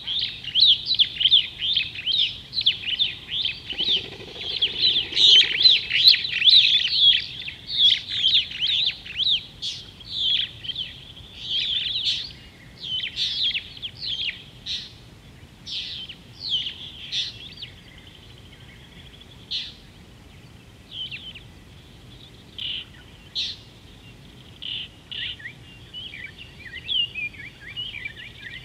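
Birds chirping: a busy run of quick, high chirps that is dense for the first dozen seconds, then thins to scattered single calls.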